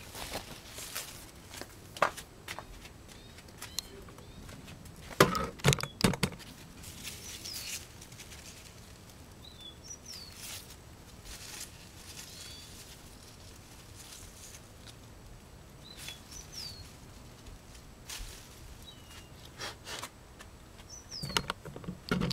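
Raspberry canes and leaves rustling as they are pushed aside and handled, with the loudest bursts about five to six seconds in and again near the end. Short bird chirps come and go in the background throughout.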